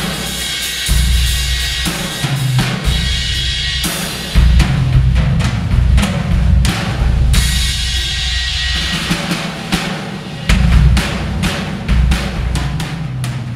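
Acoustic drum kit being played: bass drum, snare and cymbal strikes in a steady groove with crashes and fills. It is played in a room with little acoustic treatment, which the drummer says echoes too much.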